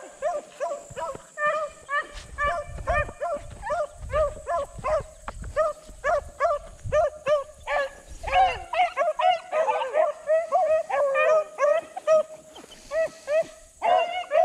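Several dogs baying on a rabbit's scent trail: short, pitched yelps and barks at about three or four a second, with voices overlapping in a busy stretch just past the middle.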